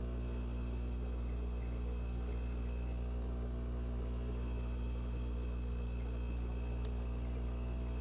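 Miele CVA 6405 built-in coffee machine running a cleaning program, its pump giving a steady low hum, with a few faint ticks over it.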